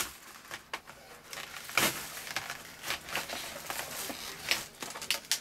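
Knife cutting and prying through a stiff plastic clamshell blister pack: crinkling plastic with irregular sharp cracks and snaps, the loudest about two seconds in.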